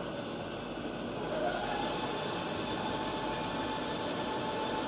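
CNC mill-turn machine running, its workpiece spindle turning: a steady machine hum and hiss, with a whine that rises about a second and a half in and then holds steady.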